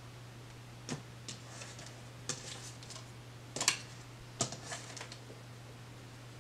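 Tarot cards handled on a tabletop: an uneven series of light taps and card clicks as cards are taken from the deck and laid down, over a faint steady low hum.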